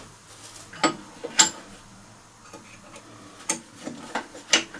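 A handful of separate sharp clicks and taps of small metal parts being handled and fitted, as a lawnmower's blade brake spring and parts go back into place.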